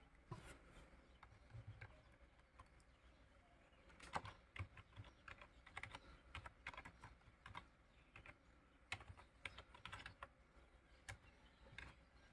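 Faint keystrokes on a computer keyboard as a short name is typed, sharp clicks coming in irregular bursts.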